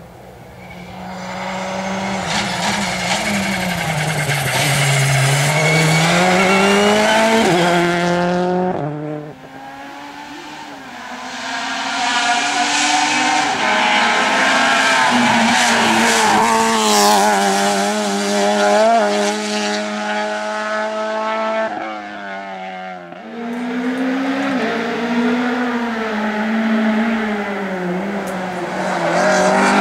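Rally cars driven hard on a stage, engines revving high and dropping in pitch again and again through gear changes and braking. The sound breaks off abruptly about nine seconds in and again around twenty-three seconds, and another run of revving follows each time.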